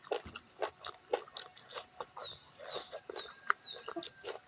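Close-up eating sounds of rice with stinging-nettle soup: a string of wet chewing and lip-smacking clicks. A little after two seconds in, about four quick, high falling chirps, like a small bird calling in the background.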